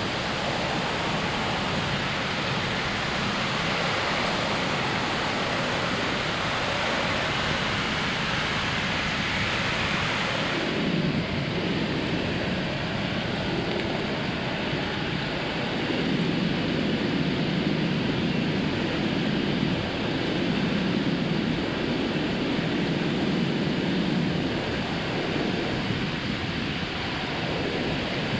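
Ocean surf breaking and washing onto a beach as a steady hiss. About eleven seconds in, the sound turns duller and lower, with less hiss and more rumble.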